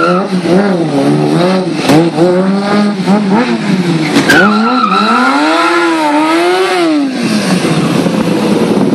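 Sport motorcycle engine revving up and down again and again as a stunt rider works the throttle, with a brief steady tire squeal about four seconds in; near the end the engine settles to a steadier note as the bike goes up on a wheelie.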